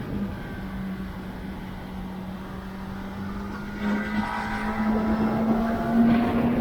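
Kawasaki ZX-10R's 998 cc inline-four engine running steadily under light throttle. About four seconds in the throttle opens, the engine gets louder and its note climbs slowly as the bike accelerates.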